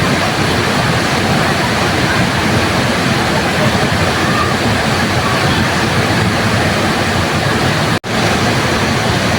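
Waterfall rushing steadily, a dense even roar of falling water that cuts out for an instant about eight seconds in.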